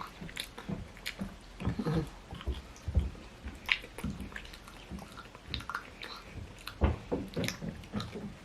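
A person chewing and eating, with wet mouth sounds and scattered small clicks and soft knocks.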